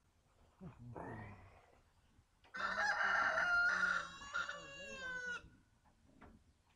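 A rooster crowing once: one long call of nearly three seconds, starting about two and a half seconds in, after a shorter, quieter rising sound about a second in.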